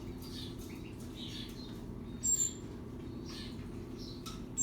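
Birds chirping: two short, sharp, very high chirps, one about two seconds in and one at the end, over faint scattered twittering.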